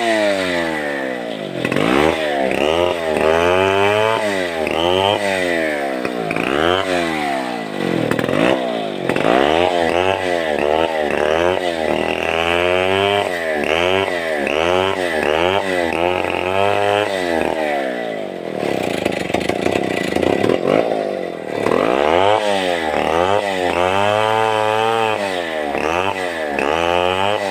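Two-stroke chainsaw cutting a sengon log. The engine pitch rises and falls over and over, about once a second, with a lower, steadier stretch about two-thirds of the way through.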